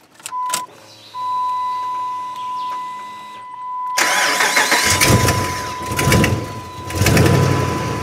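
Dodge Ram 5.7 Hemi V8 being started: clicks and a faint steady hum as the key is turned on, then about four seconds in the starter cranks and the engine fires and keeps running, revving a couple of times. A steady high-pitched tone sounds throughout. The engine starting and staying running is the sign that the intermittent crank, start and die fault is cured after the missing ABS-power fuse was fitted.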